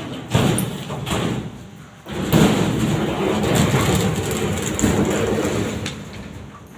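Heavy shrink-wrapped wooden cabinet being shifted and dragged on the ground: a few rumbling scrapes and knocks, then a longer rumbling scrape from about two seconds in that fades near the end.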